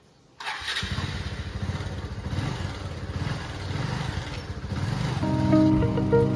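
Motorcycle engine starting with a sudden catch about half a second in, then running with a fast, even pulse. Background music comes in about five seconds in.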